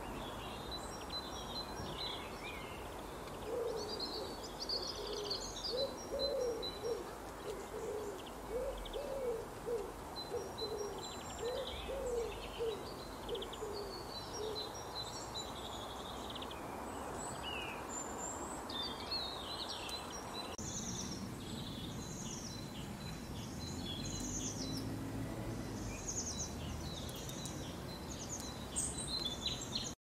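Small songbirds chirping and twittering in quick high calls throughout. From about three seconds in to about fourteen seconds, a low hooting call repeats over and over beneath them.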